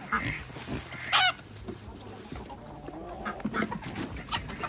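Chickens clucking, with one loud, short squawk about a second in.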